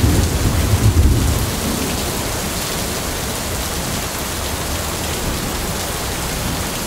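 Heavy thunderstorm rain pouring down steadily onto wet paving and ground, loud. A low rumble sits under it during the first second and a half.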